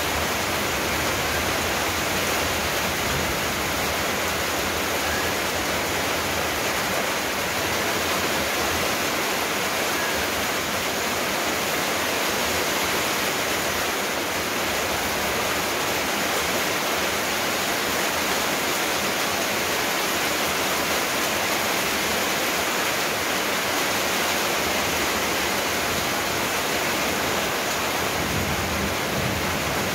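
Steady, unchanging rushing noise that spreads evenly from low to high pitch, with no tones or breaks.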